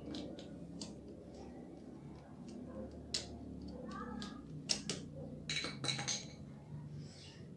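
Scattered small metallic clicks and taps of a hand tool working a fastener on a motorcycle's exhaust mounting bracket, with a cluster of sharper clicks about five to six seconds in.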